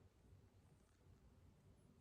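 Near silence in the pause between a dog's snores: only faint room tone.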